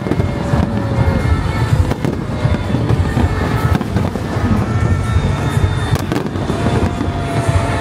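Fireworks going off in rapid succession: a dense, unbroken rumble of booms with many sharp crackling bangs.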